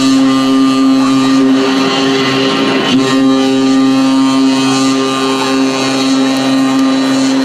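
A loud, buzzing drone held on one low pitch, rich in overtones, played through the stage sound system, with a brief waver in pitch about three seconds in.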